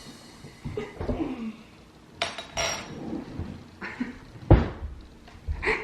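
Spoon and jar clinking and scraping, with scattered handling knocks and one heavier thump a little past halfway.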